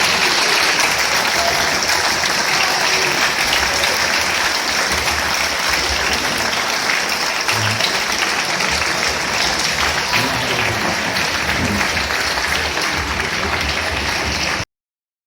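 A large opera house audience applauding, a dense, steady mass of clapping that cuts off abruptly near the end.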